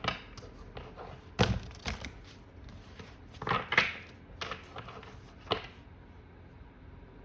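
Tarot cards being shuffled by hand, an irregular run of sharp taps and slaps of card on card and on the table, stopping about six seconds in.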